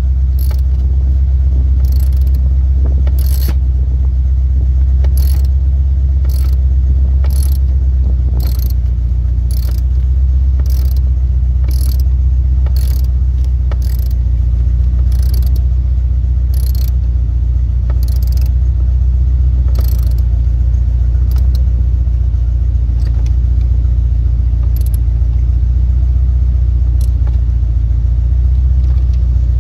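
Chevrolet C4 Corvette's 350 Cross-Fire Injection V8 idling steadily, a deep, even exhaust rumble, with faint sharp clicks about once a second.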